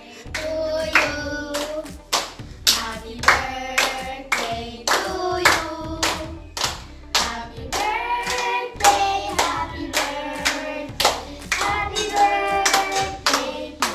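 Children singing a song while clapping their hands in a steady beat, about two claps a second.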